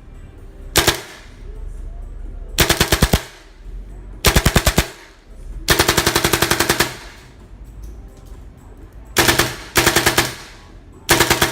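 Tippmann M4 blowback airsoft rifle firing on full auto: a single shot near the start, then six short bursts of rapid, evenly spaced shots, the longest lasting about a second.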